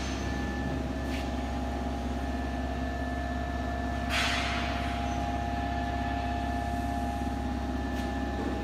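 Steady mechanical hum of a pulley test rig pulling a wire rope around a 916 mm three-sheave conductor stringing pulley held at a 75 kN (7.5 t) working load. A short hissing rush comes about four seconds in.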